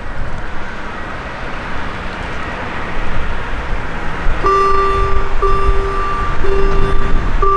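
Level crossing warning signal starting up about four and a half seconds in: an electronic two-pitch tone sounding in roughly one-second pulses with short breaks, as the crossing's lights come on before the barriers close. Before and under it, a steady low outdoor rumble.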